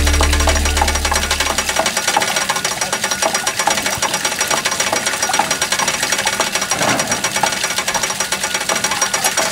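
Water-driven wooden water wheel turning a shaft that lifts and drops a row of wooden hammers, clattering rapidly and rhythmically over the splash of water pouring from a wooden trough. Background music fades out in the first two seconds.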